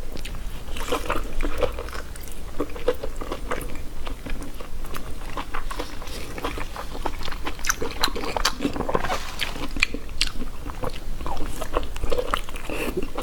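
Close-miked chewing and biting of spicy intestine: a run of irregular wet, squelchy mouth clicks and smacks.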